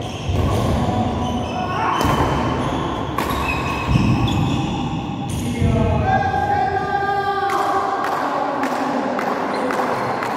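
Badminton play on an indoor court: an irregular run of thuds and sharp knocks from players' footfalls and racket strikes on the shuttlecock.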